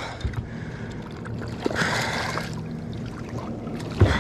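Water moving against a small boat's hull over a low steady hum, with a brief hiss about two seconds in and a knock near the end.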